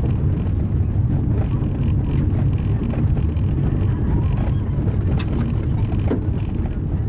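Car driving on an unpaved gravel road: a steady low rumble of tyres and engine, with scattered sharp clicks from the gravel.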